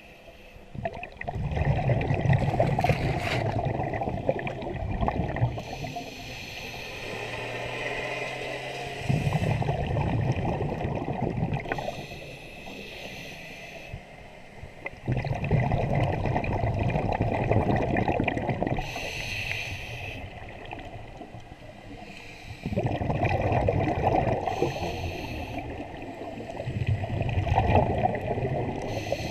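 Scuba diver breathing through a regulator underwater: a hissing inhalation, then a gurgling rush of exhaled bubbles lasting a few seconds, repeating four or five times.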